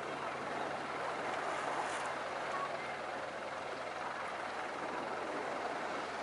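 Steady outdoor ambience at the shore: an even wash of noise with a faint, steady low engine hum underneath and a few faint distant voices.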